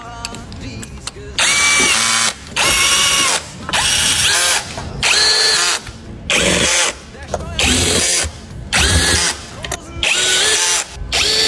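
Power drill or driver run in about nine short bursts, each under a second, its motor's pitch rising as it spins up and then holding steady, most likely driving fasteners during engine work.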